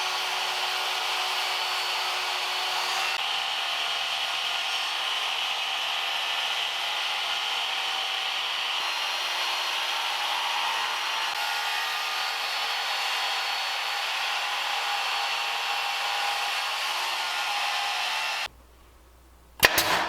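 A motor-driven machine running with a steady airy rush, which cuts off suddenly near the end, followed by a single sharp knock.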